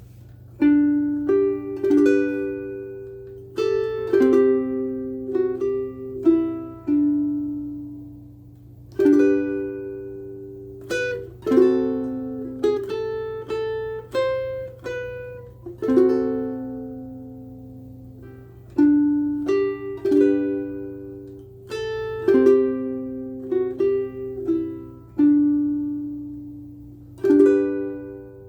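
Martin IZ tenor ukulele strung with Uke Logic Pink soft tension strings, played solo: plucked and strummed chords in phrases, each ringing out and dying away, with short pauses between phrases. A faint steady low hum lies underneath.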